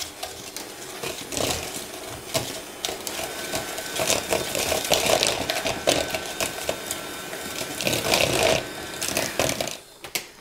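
Electric hand mixer running, its whisk beaters whipping egg yolk and icing sugar smooth in a bowl, with the beaters knocking against the bowl; the motor stops near the end.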